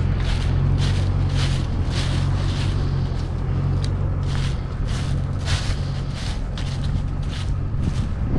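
Footsteps crunching through dry fallen leaves, about two steps a second, over the steady low hum of a pickup truck's engine idling.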